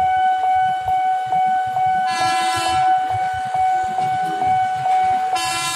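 An approaching KRL electric commuter train sounds its horn twice: a blast about two seconds in, and another starting near the end. A steady whistling tone with a faint tick about twice a second runs under it.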